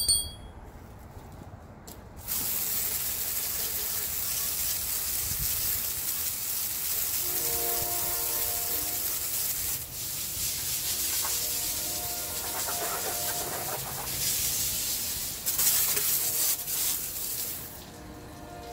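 Hydraulic fluid spraying under pressure from a loose hydraulic fitting while the system runs: a loud, steady hiss that cuts in suddenly about two seconds in and stops near the end, briefly dipping partway through. Faint whining tones come and go beneath it.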